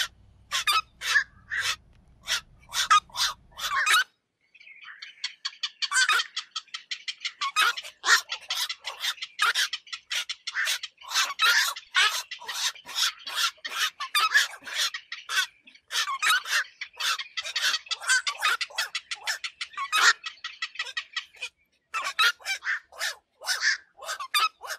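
Black-crowned night herons calling: short calls repeated in quick succession, sparse at first, then many birds overlapping in a dense chorus from about five seconds in, thinning again near the end. It is a lure recording made to draw night herons to nets at night.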